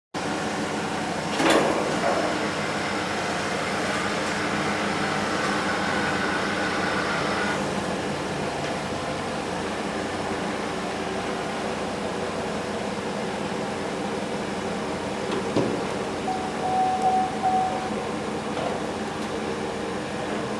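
Steady mechanical hum from a running machine, with a sharp click about a second and a half in and another near the end.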